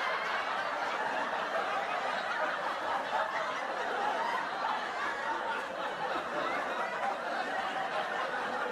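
A crowd of people laughing together: a steady mass of many overlapping laughs and chuckles.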